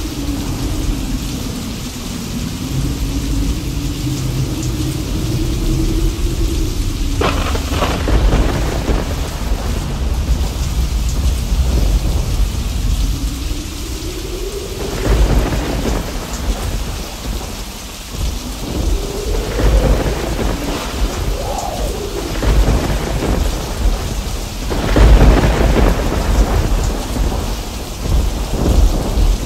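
Thunderstorm: steady rain with thunder rumbling on and off. A sharp crack comes about a quarter of the way in, with heavier peals about halfway and near the end.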